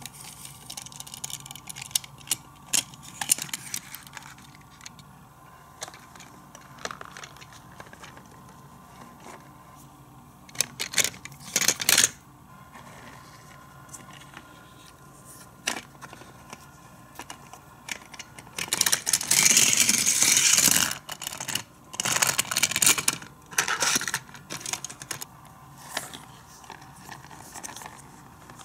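Plastic parts of a Matchbox Fire Station Cliff Hanger toy playset and a small diecast vehicle being handled and operated: scattered clicks and clatters, with two longer stretches of rattling about two-thirds of the way through.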